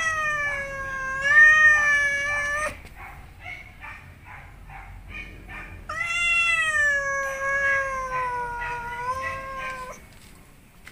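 Cat yowling at another cat in a standoff: one long, wavering yowl, quieter rough broken sounds, then a second long yowl about six seconds in that slowly falls in pitch and stops near the end.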